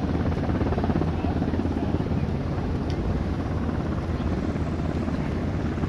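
Propeller aircraft's piston engine running on the ramp: a steady low throbbing rumble.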